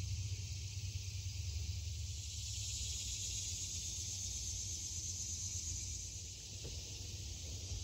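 Backyard outdoor ambience: a steady high-pitched hiss over a low rumble, with one faint click late on.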